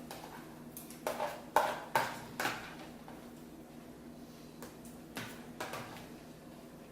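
Metal spoon clinking and scraping against a bowl of soggy cereal: a cluster of short clinks about one to two and a half seconds in, then a few fainter ones.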